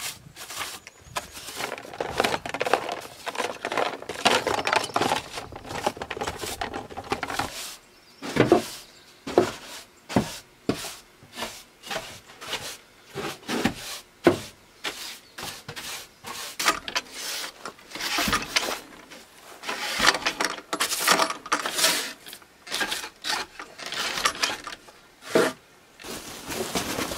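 Small hard objects being handled: irregular clicks, knocks and light rattles, some ringing briefly.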